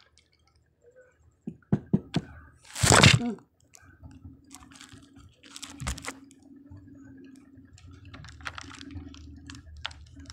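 Light clicks of wooden chopsticks against candy-coated peanut M&Ms on a plate, with one louder brief noisy burst about three seconds in.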